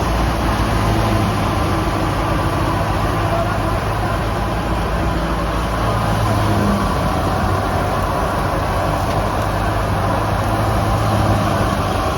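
Tractor-driven wheat thresher running steadily, a dense mechanical noise over the hum of its engine.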